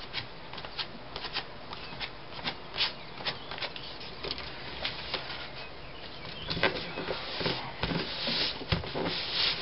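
Sheet of paper being handled as glue is spread over it by hand: irregular soft scrapes, crackles and rustles, busier in the last few seconds.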